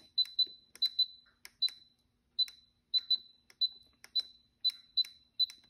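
Instant Pot Ultra's control dial being turned, each click of the dial giving a short high beep: about fifteen beeps at uneven spacing as the steam timer is stepped up toward 18 minutes.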